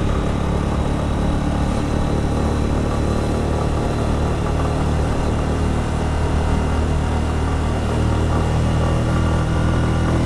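Keeway Superlight 125's single-cylinder four-stroke engine running steadily, with an even hum that hardly changes in pitch.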